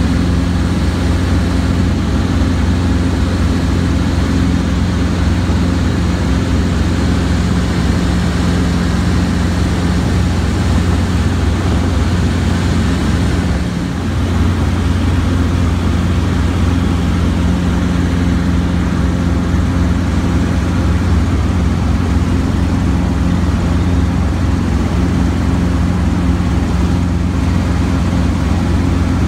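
Robinson R22 helicopter in cruising flight, heard from inside the cabin: the steady drone of its four-cylinder piston engine and rotor, with one short dip about halfway through.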